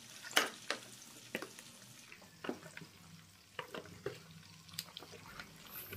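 Spoon stirring raw chicken pieces through a wet egg-and-spice marinade in a plastic tub: faint, irregular squelching with scattered light clicks and scrapes.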